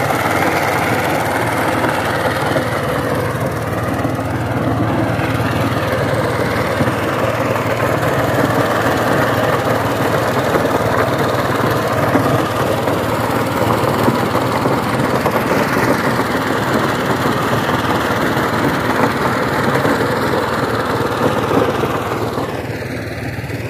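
Single-cylinder diesel engine of a two-wheel power tiller running steadily as the tiller works across a field, getting a little quieter near the end.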